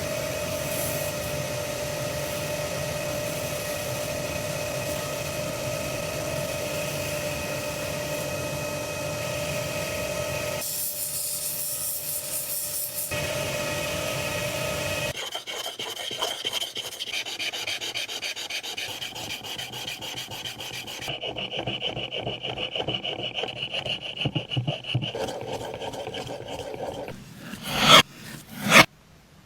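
Steel chisel blade being ground, polished and sharpened: a steady rasping rub with a faint hum for about fifteen seconds, then quicker repeated scraping strokes, with a few sharp knocks near the end.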